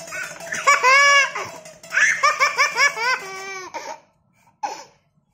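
A toddler laughing hard in two high-pitched bouts of quick, pulsing ha-ha-ha laughs, the second starting about two seconds in.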